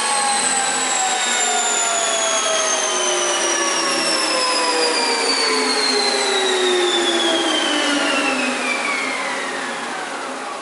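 WEINIG Profimat 22N four-sided planer's cutter spindles spinning down after shutdown: several whining tones slide steadily lower together, and the sound fades away near the end.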